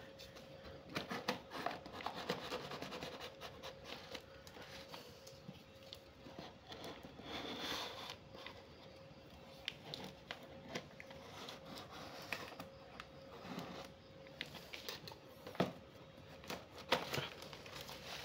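Kitchen knife slitting packing tape on a cardboard box, then the box flaps pulled open: scattered scratches, scrapes and tape tearing.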